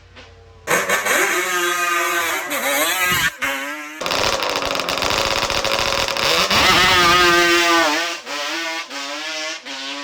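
Yamaha Banshee drag quad's big-bore 421 twin-cylinder two-stroke engine running hard on drag passes, its pitch rising and falling, with an abrupt cut about four seconds in to a second pass that climbs steadily. Guitar music takes over near the end.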